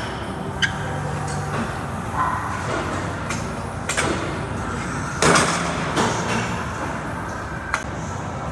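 Gym ambience: a steady background rush with scattered sharp metallic clanks and knocks from weight machines and plates, about one every second or so, the loudest about five seconds in.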